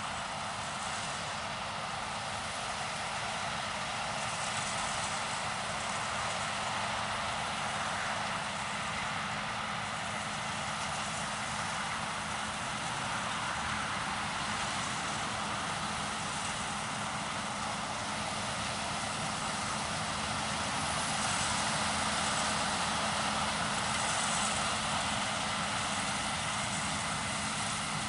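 Case IH 9230 Axial-Flow combine harvester combining peas, its engine and threshing machinery running steadily. It grows a little louder about three-quarters of the way in.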